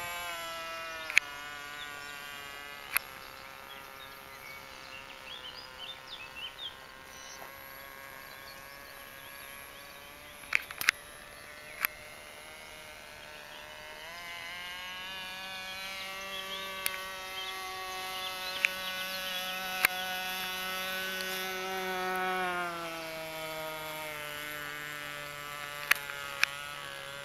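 Radio-controlled model plane's electric motor and propeller buzzing in flight, a steady whine whose pitch wavers, getting louder about halfway through and dropping in pitch a few seconds before the end. A few sharp clicks are heard.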